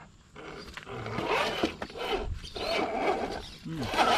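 A 1/10-scale SCX10-based RC crawler's 2300 kV brushless motor and three-speed gearbox whirring under throttle, the pitch swinging up and down as the load changes.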